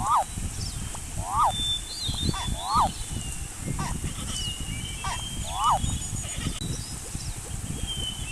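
A bird honking repeatedly, about five short calls that each rise and then fall in pitch, spaced irregularly. Small birds chirp faintly and high over a low rumbling background.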